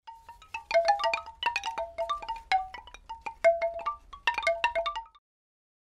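Short intro jingle of rapid, bright chime-like struck notes tumbling over a faint low rumble, stopping abruptly about five seconds in.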